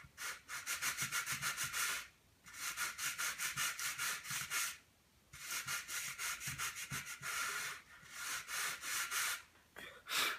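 Sandpaper on a sanding block rubbed in quick back-and-forth strokes along a model glider wing's trailing edge, in four runs with short pauses between them. These are finishing touches, sanding until the black marker lines are gone.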